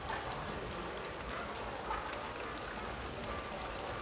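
Heavy rain falling steadily on wet brick paving: an even hiss with many small drop splashes ticking through it.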